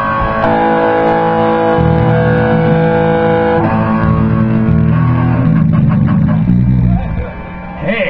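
Amplified electric guitar and bass played loosely during a sound check: a guitar chord is held and rings for about three seconds while low bass notes play underneath, and the playing stops about seven seconds in.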